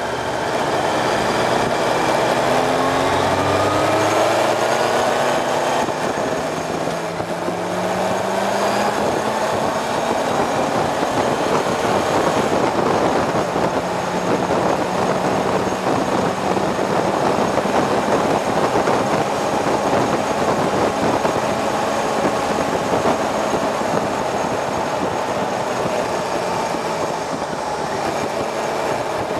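Motorcycle engine heard from on board, rising in pitch as it accelerates over the first several seconds, then running at a steady pitch under heavy wind rush.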